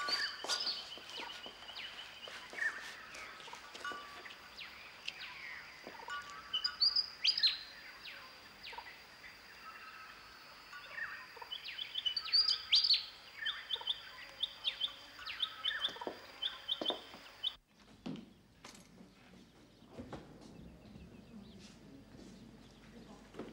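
Birds chirping and calling: quick sweeping chirps and short repeated trills over a faint steady high tone. The birdsong cuts off suddenly near the end, leaving only quieter low sounds.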